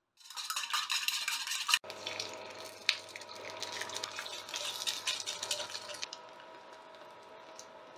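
Egg frying in hot oil, sizzling and crackling. After a cut about two seconds in, egg sizzles in a small square pan while chopsticks stir it, and the sizzle drops lower at about six seconds.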